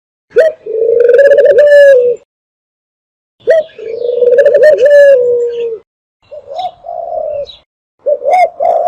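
Dove cooing in repeated rolling phrases, played as a calling sound to lure doves. There are two long coos of about two seconds each, then two shorter ones near the end.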